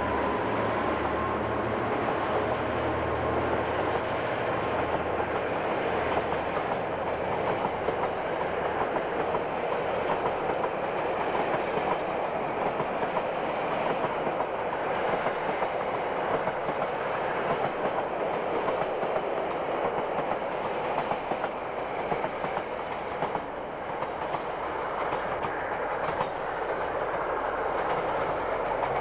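Coal train passing: a low diesel locomotive engine hum in the first several seconds fades as the locomotives move off. A long string of loaded coal wagons then rolls by with a steady rumble and clatter of steel wheels on the rails.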